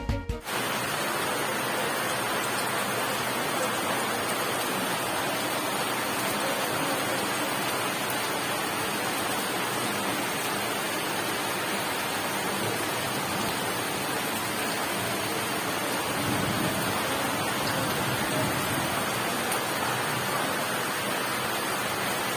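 Heavy rain pouring down, a steady, even hiss that holds at one level throughout.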